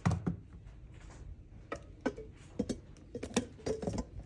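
Irregular light clicks and knocks of a chrome motorcycle headlamp bezel and headlamp unit being handled in a cardboard box, as the new LED sealed-beam unit is seated in the bezel.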